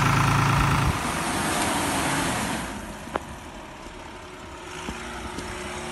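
Farm tractor's diesel engine idling with a steady low hum, cut off abruptly about a second in. It is followed by a softer, even rushing noise that fades down midway, with a single sharp click about three seconds in.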